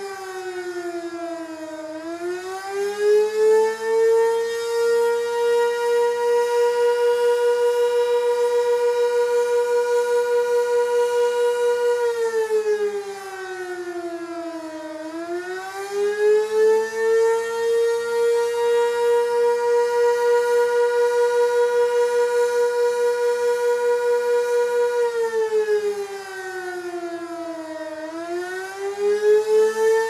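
Sentry 16V1T-B outdoor warning siren sounding the Attack signal with a single tone. The pitch holds steady for several seconds, then sinks and climbs back up, about every 13 seconds, three times.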